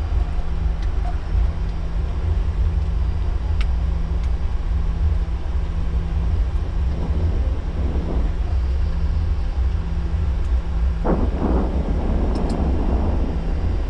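Steady low rumble and hum on the flight deck of an Airbus A340 airliner rolling out after landing.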